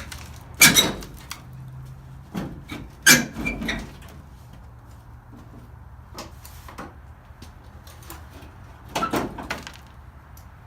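Sheet-metal body panels of an old car being pried and pulled loose, giving a few loud knocks and bangs about a second in, around three seconds in and near the end, with smaller clanks between.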